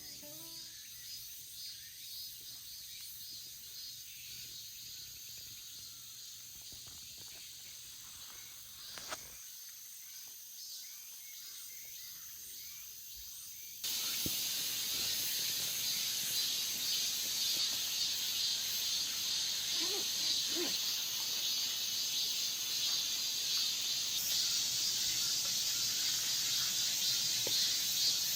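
Insects chirping steadily in the forest, a high-pitched even drone. It turns suddenly louder about 14 seconds in.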